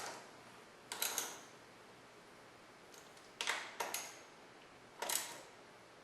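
Hand ratchet clicking in four short bursts as 12 mm bolts are tightened down.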